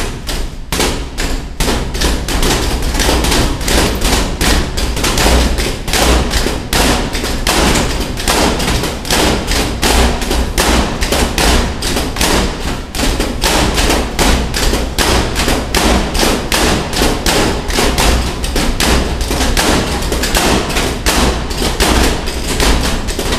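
Boxing gloves punching padded strike pads on a metal frame, two people hitting at once: a rapid, unbroken flurry of thuds for an all-out timed interval.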